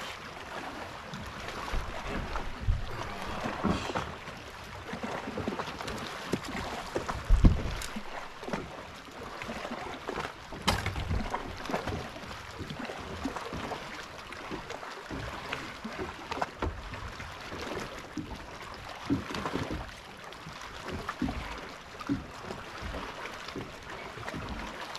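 Water lapping against a bass boat's hull with wind on the microphone, and scattered knocks and thumps on the deck, the loudest about seven seconds in.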